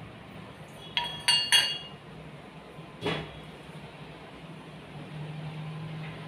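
Stainless steel kitchen vessels clinking against each other: three quick ringing clinks about a second in, then a single knock about three seconds in, over a low steady hum.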